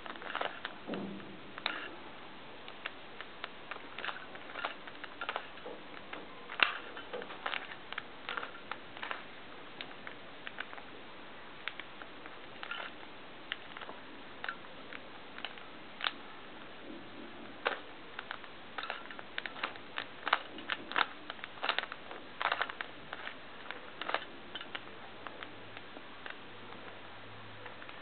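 Plastic 3x3 Rubik's cube being turned by hand: quick, irregular clicks and clacks of the layers turning and snapping into line, in flurries, thinning out near the end.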